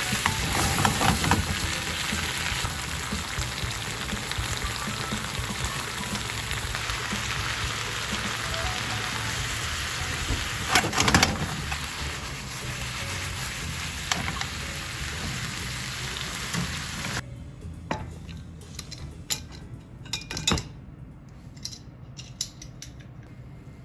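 Konnyaku and vegetables in a soy-based sauce sizzling in a frying pan as they are stir-fried, with louder bursts of tossing about a second in and near the middle as the sauce reduces. The sizzling cuts off about two-thirds through, followed by a few light clinks of dishes.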